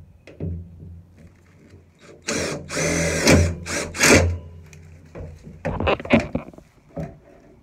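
Cordless impact driver running a screw through a steel E-track rail into the van floor, in one longer run and then a couple of short bursts about two seconds later.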